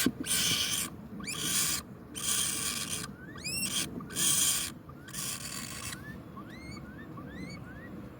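Nestling woodpeckers making harsh hissing begging rasps, about one a second, with short high rising chirps between them. The rasps stop about six seconds in and only the chirps go on, about two a second.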